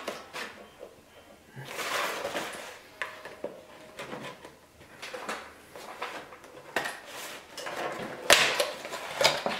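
A cardboard shipping box being opened with a kitchen knife: the blade slitting and scraping along the packing tape, with cardboard rustling and a few sharp clicks. The loudest rasping bursts come near the end as the box is worked open by hand.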